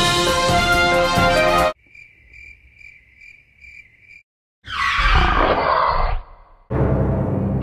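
A short burst of music, then a cricket chirping in a quiet pause, about three chirps a second. Then a loud rushing noise lasting about a second and a half, and music again near the end.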